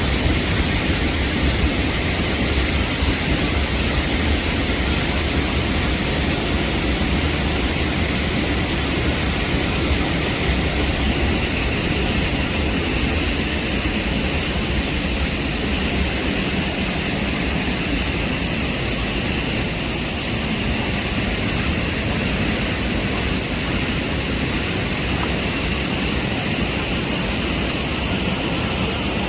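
Steady, loud rush of fast-flowing water, an unbroken roar with no separate splashes or events.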